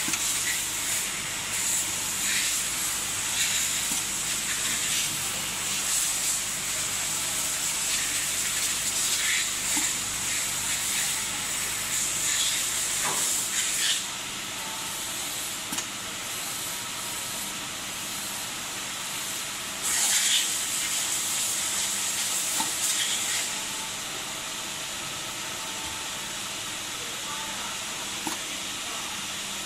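Machine-shop noise from a robot-tended CNC lathe cell: a steady hiss with repeated short bursts of air hiss, many in the first half and a louder run about twenty seconds in. A low hum underneath stops about halfway through.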